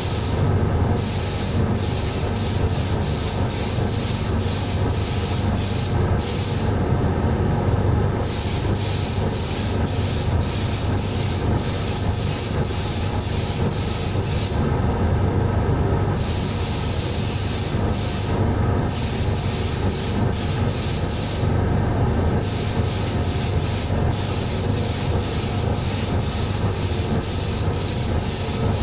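Compressed-air blasting or spraying gun hissing, its trigger released and squeezed again many times in short and longer breaks, over a steady low hum of machinery.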